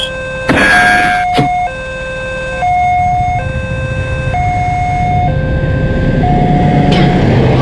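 Railway level-crossing alarm sounding, two electronic tones taking turns, a lower and a higher, each held just under a second. There is a brief rushing noise about half a second in, and from about five seconds in the low rumble of the approaching train builds up.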